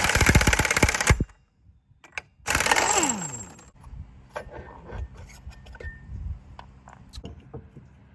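Impact wrench hammering in two bursts of about a second each, the second winding down with a falling pitch as it spins free, while removing the stuck CVT pulley. Afterwards, light metallic clinks and knocks of parts being handled.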